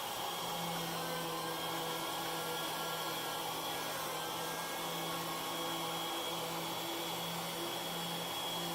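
Forest Scientific CNC wood router running steadily while milling pockets in a cherry block: a continuous rushing noise with a steady high whine and a low hum.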